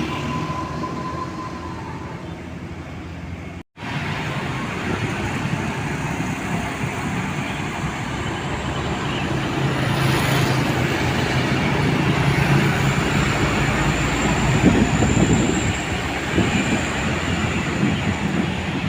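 Steady rumbling noise of a moving vehicle, with a brief break in the sound about four seconds in.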